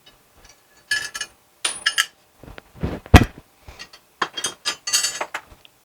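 Metal parts and hand tools being handled on a workbench: a run of clinks and clatters, with one loud knock about three seconds in.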